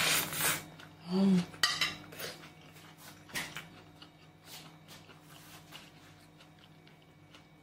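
Metal fork clinking and scraping on a ceramic plate as the last bite of noodles is scooped up and the fork is set down. There are several louder clinks in the first two seconds, then a few light taps.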